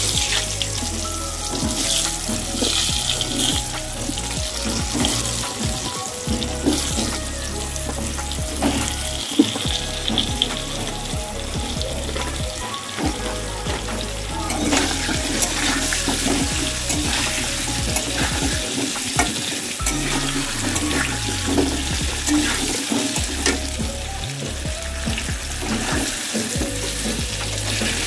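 Potato chunks frying in hot oil in a kadai, a steady sizzle throughout, with scattered clicks and knocks as more pieces go in and a spatula moves against the pan.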